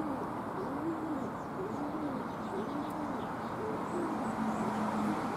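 A pigeon cooing: a low coo repeated about once a second, each note rising and then falling in pitch. A few faint, high chirps from a small bird come about four seconds in.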